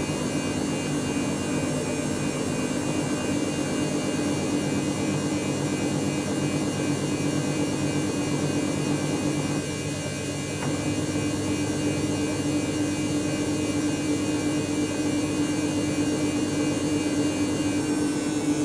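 Dyson Contrarotator CR01 washing machine running with a steady motor hum and a faint high whine, dipping slightly for a moment about halfway through.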